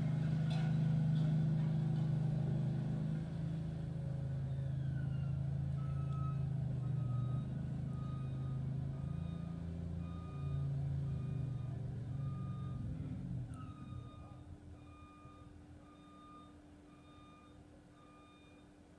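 A road-work machine's engine running steadily and fading out about two-thirds of the way through. A reverse alarm beeps about once a second from about six seconds in, on through the rest.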